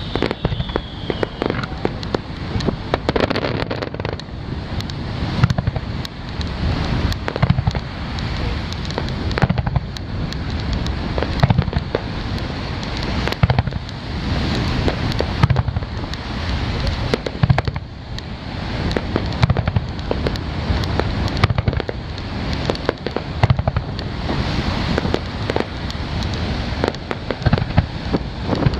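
Fireworks display at full barrage: a rapid, unbroken run of shell bursts and crackling. A falling whistle runs through the first second or so.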